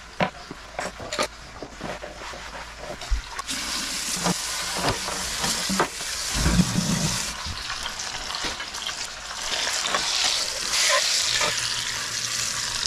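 Pork shoulder searing in hot oil in an enameled cast-iron Dutch oven over high heat: a steady sizzle full of scattered crackles and pops, growing louder about three and a half seconds in.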